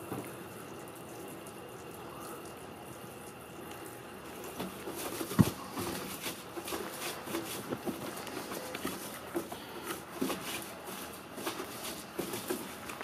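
Water-fed pole brush scrubbing a window: from about four seconds in, irregular pattering and spattering of the pure-water jets and brush on the glass, with one sharp knock about five seconds in.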